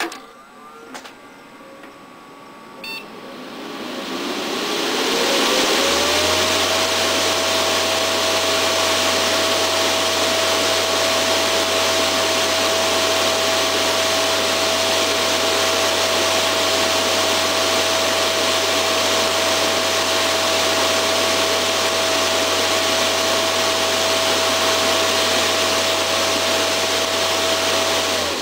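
Delta QFR1212GHE 120 × 38 mm high-speed PC cooling fan spinning up: after a couple of clicks near the start, its whine rises over about three seconds as it reaches full speed. It then runs at full speed with a loud, steady rush of air, a steady whine and a low hum, and begins to wind down at the very end.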